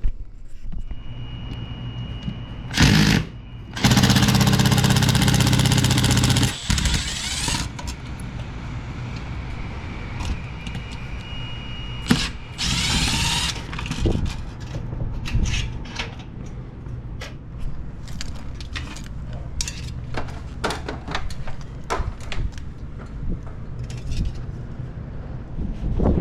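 A power drill/driver runs in short bursts, the longest for about three and a half seconds, and later spins up with a rising whine. Scattered clicks and knocks of tool and metal-panel handling run over a steady low hum.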